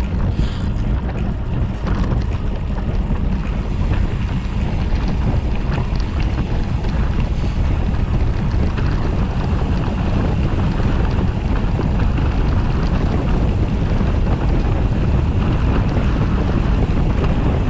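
Steady wind buffeting the microphone of a camera on a moving gravel bike, over the rumble and crunch of tyres rolling on a loose gravel track.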